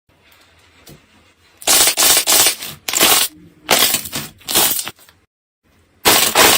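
Crunchy slime being pressed and squeezed by hand, giving a run of loud crackling crunches about every half second, broken by a brief silence near the end.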